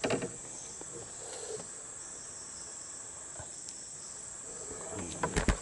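Insects droning steadily at a high pitch, with a few sharp knocks near the end.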